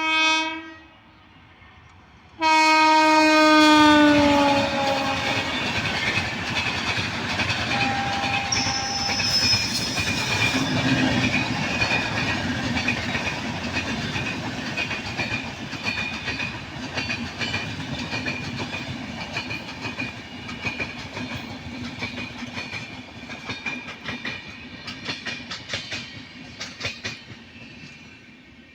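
Indian Railways train passing: the locomotive horn gives a short blast, then about two seconds later a longer blast that drops in pitch as it goes by. The train then runs past with a steady rumble and wheel clatter, with a run of rail-joint clicks near the end as it fades.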